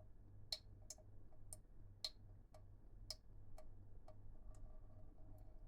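Faint, sharp clicks, about two a second and fading toward the end, over a low steady hum.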